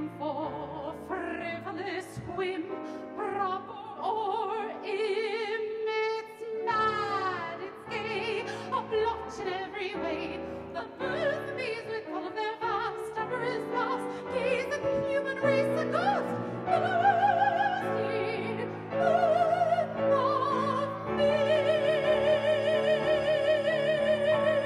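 Operatic soprano singing with wide vibrato, accompanied by a grand piano, ending on a long held note in the last few seconds.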